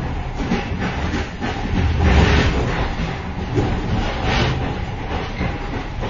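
A moving train heard from inside the vestibule between carriages: a continuous rumble with clattering and rattling, rising to a louder burst of clatter about two seconds in and again a little past four seconds.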